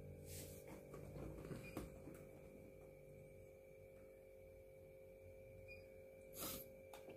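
Near silence with a steady faint hum and soft rustles as a baby otter squirms on a soft blanket, with one short louder rustle near the end.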